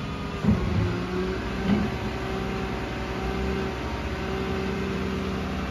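Cat MH3022 material handler's engine running with a steady hum while its hydraulic stabilizer legs are raised, with two knocks about a second apart early on as the legs lift.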